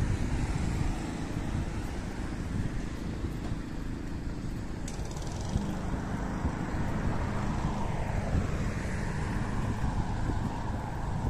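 Road traffic from cars on the adjacent street, over a low rumble of wind on the phone's microphone; in the second half a vehicle passes, its sound falling in pitch.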